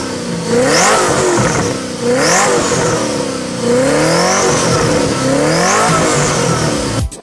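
V8 supercar engine revving hard, its pitch climbing and then dropping back about four times. Music cuts in at the very end.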